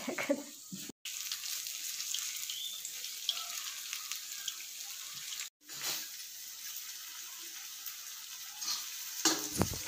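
Arbi-leaf pakoras frying in hot oil in a steel kadhai: a steady, even sizzle. It cuts out for an instant twice.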